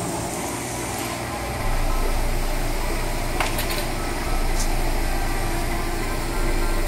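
Steady mechanical hum and hiss of a pet store's aquarium aisle, with a deeper low hum that comes in about two seconds in and a few faint clicks a little past the middle.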